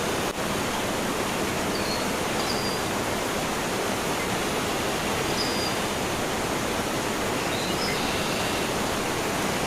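Steady, even rush of a waterfall's falling water, with a few faint short high chirps over it.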